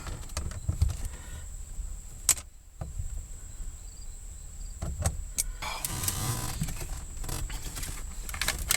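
Hand work on a car's gear shifter assembly: a few sharp metallic clicks and knocks, with a stretch of scraping and rasping about six seconds in.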